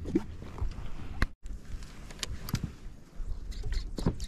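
Scattered knocks and clicks of fishing gear being handled in an inflatable boat, over a low rumble of wind and water.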